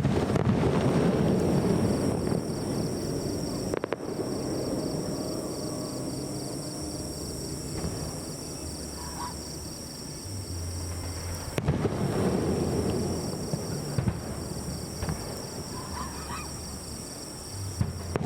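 Aerial fireworks shells bursting: sharp bangs followed by rumbling, crackling echoes, loudest at the start and again about twelve seconds in.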